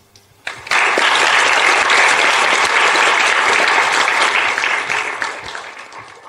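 Audience applauding: a first clap or two, then full applause that fades away near the end.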